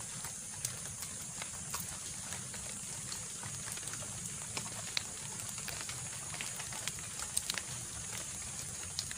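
Scattered small clicks and taps of a freshly caught tilapia being handled and unhooked by hand, sharpest about halfway through and again near the end, over a steady high hiss and a low hum.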